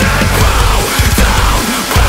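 Loud, aggressive heavy-rock music with a pounding beat.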